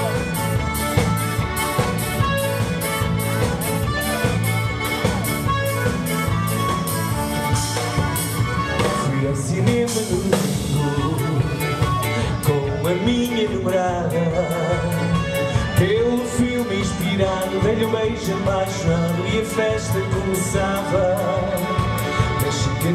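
Live band playing amplified dance music: drum kit keeping a steady beat of about three strokes a second under electric guitar and keyboard, with a gliding lead line in the middle.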